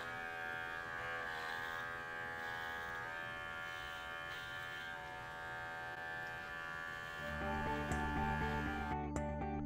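Electric dog grooming clippers with a #40 blade running with a steady buzz while shaving a dog's face. About seven seconds in, background music comes in over it.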